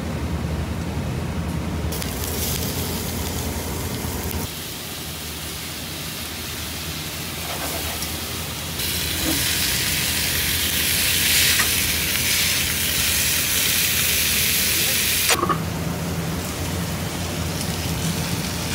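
Food sizzling in hot oil in a restaurant kitchen, over a steady low hum. The sizzle turns louder and hissier about halfway through, then drops back shortly before the end.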